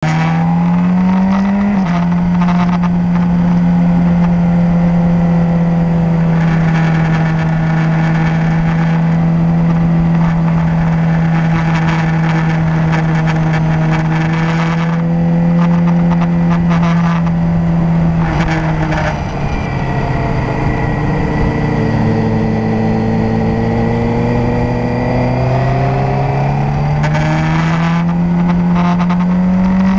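Motorcycle engine running hard at a steady pitch while riding, with wind rushing over the microphone. About two-thirds of the way in, the engine note drops as the throttle is rolled off, then climbs back up steadily as the bike accelerates again.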